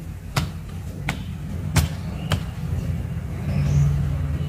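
Four sharp taps of fingers on the wrapped sticker packs in a cardboard box, within about two seconds, over a steady low rumble.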